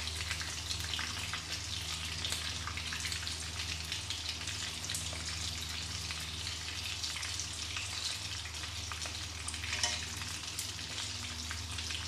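Prawns deep-frying in hot oil in a wok, sizzling with a steady crackle of small pops, and a louder flare of crackling about ten seconds in. A steady low hum runs underneath.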